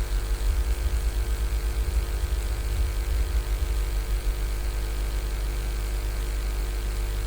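Steady low electrical hum with a faint whir, unchanging throughout.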